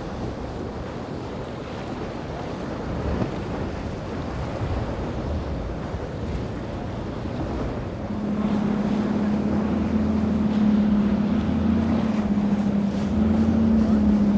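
Wind on the microphone and sea noise. From about eight seconds in, a steady hum comes in: a Mercury outboard on a Robalo centre-console boat running past at speed.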